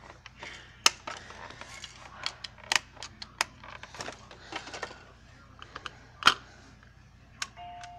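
Scattered plastic clicks and knocks from a Baby Einstein Lights and Melodies Discovery Center activity toy being handled, the loudest a little after six seconds in. Near the end, the toy's electronic melody starts up.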